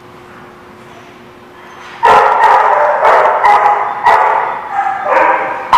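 A dog barking loudly and repeatedly, about two barks a second, starting about two seconds in after a quiet stretch. The barking is play barking among small dogs wrestling.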